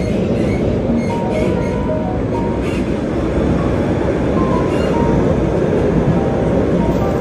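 Steady running rumble of a tram (light-rail car) heard from inside the car as it travels along the track.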